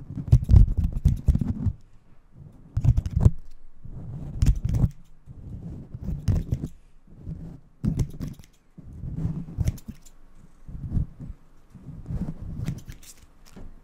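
Haircut tools worked close against a furry microphone cover, giving crackly rustling and clicking in bursts about every second and a half, as in a mock haircut.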